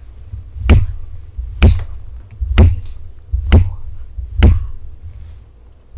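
Fingers snapped five times in a steady beat, about one snap a second.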